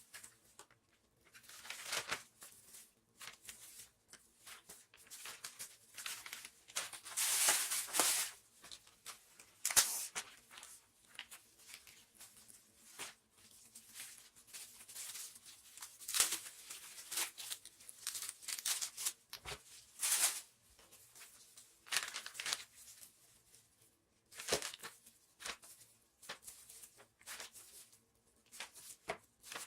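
Plastic packaging being handled: irregular bursts of crinkling and rustling with short tearing sounds, as meat is wrapped into portions.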